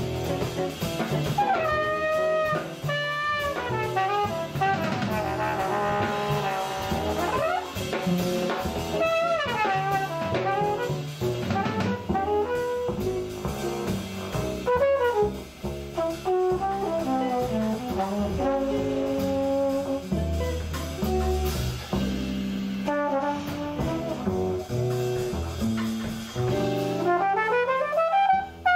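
Live jazz: a trumpet solo of runs and held notes over upright bass and drum kit, ending in a fast rising run.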